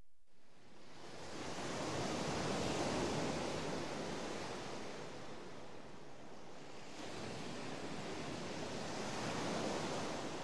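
Ocean waves washing in: a steady hiss of surf that swells slowly, subsides, and swells again near the end.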